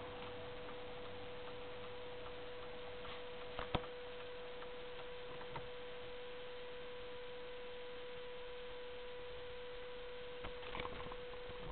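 Faint steady hum on a single thin tone, with a couple of soft clicks a little under four seconds in and a few faint ticks near the end.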